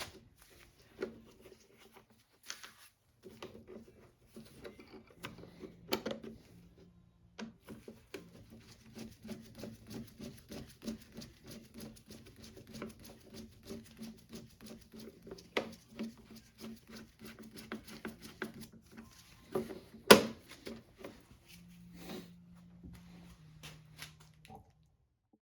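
Faint, rapid, irregular clicking and tapping, with a few sharper knocks, the loudest about twenty seconds in, before it cuts off abruptly near the end.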